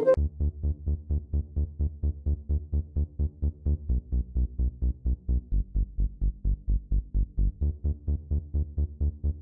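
Electronic dance music with a steady pulsing bass beat, about four pulses a second. It sounds muffled, with no high notes.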